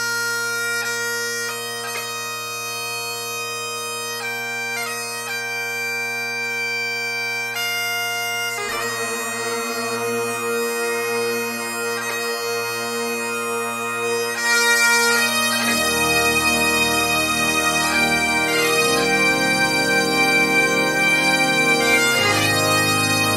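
Bagpipe music: a steady drone under a melody of held notes. About fifteen seconds in, lower accompanying notes join and the music gets louder.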